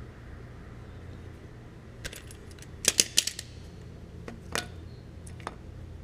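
Metal parts and tools clinking and clattering as they are handled: a few sharp clicks, with the loudest cluster of clatters about three seconds in, over a low steady hum.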